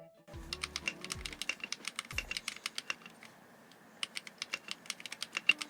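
Typing on a mechanical keyboard fitted with Akko Rose Red linear switches: rapid keystroke clacks, pausing for about a second midway, over quiet background music.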